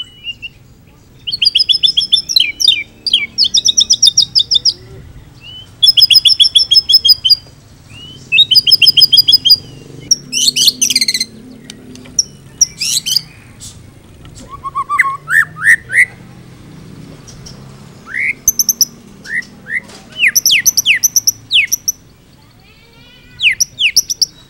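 White-rumped shama singing a loud, varied song packed with imitations of other birds' calls: phrases of rapid repeated notes, rising slurs and quick falling whistles, separated by short pauses.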